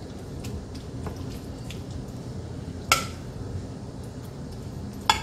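Metal spoon scooping and spreading a wet ground-beef taco mixture from a pot onto tortillas: soft squishing with small clicks, and a sharp ringing clink of the spoon against the cookware about three seconds in and again near the end.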